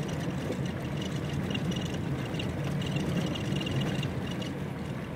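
Steady rumble of a vehicle driving along a rough dirt road, heard from inside the vehicle, with a faint high-pitched squeak that comes and goes.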